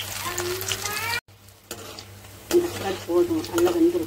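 Battered baby corn sizzling as it deep-fries in hot oil in an aluminium kadai, with a perforated metal spatula stirring and clicking against the pan. The sound breaks off for a moment about a second in.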